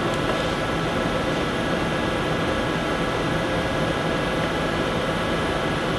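Steady background hiss and hum, like room air conditioning or a fan, with no distinct events.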